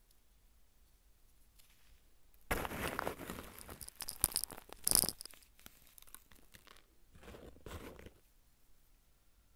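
Fingers crushing dry, powdery chunks of dyed 'comet dust', a gritty crumbling and crunching. A dense run of crunches starts a couple of seconds in and is loudest at its close, and a softer crumble follows near the end.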